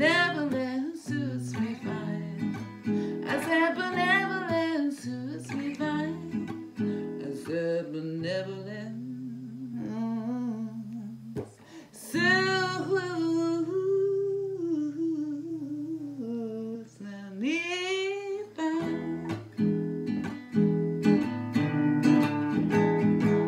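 A woman sings wordless, sliding melodic lines over a strummed steel-less black acoustic guitar, with long held notes while the chords ring in the middle. Near the end the voice drops out and the guitar strumming carries on alone.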